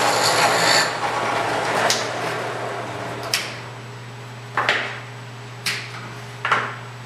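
Drill press running with a hole saw cutting through stacked plywood: a loud rush of cutting noise over a steady motor hum, fading out after about three seconds. Then a few sharp knocks on the wood, one of them doubled.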